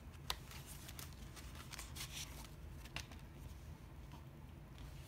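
Faint handling noise of Blu-ray discs and the cardboard box-set packaging: a few light clicks and rustles over a low room hum.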